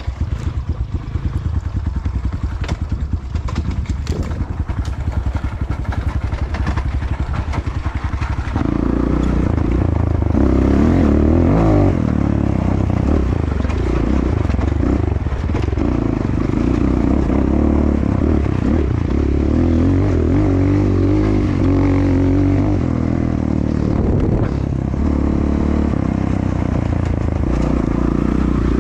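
Enduro motorcycle engine running at low revs with a steady pulse, then louder and revving up and down as it pulls from about eight seconds in.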